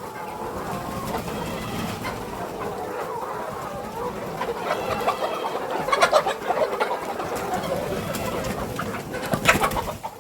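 A flock of 16-week-old pullets clucking and chattering, many calls overlapping, with a few sharp louder flaps or knocks about six and nine and a half seconds in.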